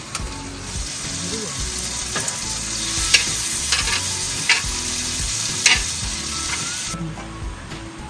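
Chicken pieces sizzling hard in a hot griddle pan, with a few sharp metallic clinks between about 3 and 6 seconds in. The sizzling drops away abruptly about 7 seconds in. Faint background music runs underneath.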